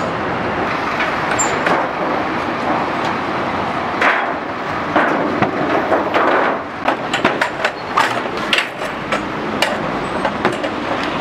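Steady street traffic noise, with a run of sharp knocks and clatter from about four seconds in as stall gear is handled and wooden benches are set down on the paving. The knocks are thickest between about five and ten seconds.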